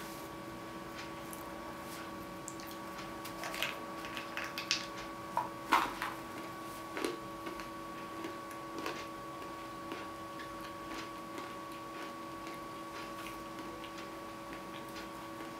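Salted peanuts being chewed: a cluster of crunches between about three and a half and seven seconds in, then softer scattered chewing clicks, over a steady hum and faint ticking.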